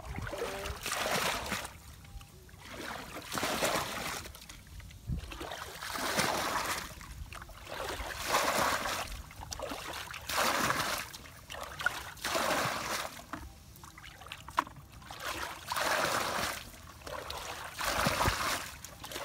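Shallow muddy water splashing and sloshing in repeated swells, roughly every two seconds, as it is worked by hand.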